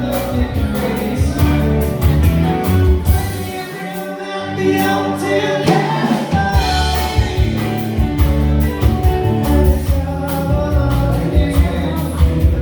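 Band music with singing over a steady drum beat and bass. The bass and drums drop out briefly about four seconds in, then come back.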